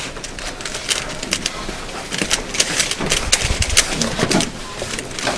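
Plastic puzzle cube being turned rapidly by hand: a fast, irregular run of clicks and clacks as the layers snap round, busiest around the middle.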